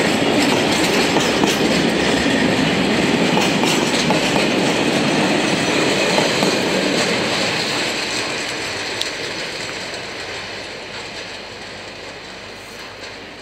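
Freight train's flat wagons rolling past, wheels clacking over the rail joints. The sound fades steadily from about seven seconds in as the end of the train moves away.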